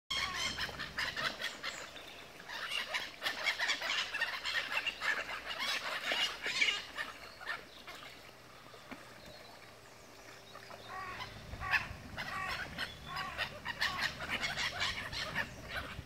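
A flock of black-headed gulls calling, many short overlapping cries, thinning out about halfway through and building up again; a low rumble comes in from about two-thirds of the way through.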